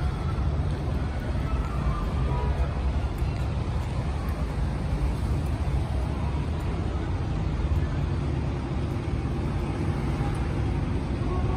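A car driving, with a steady low rumble of engine and tyre noise.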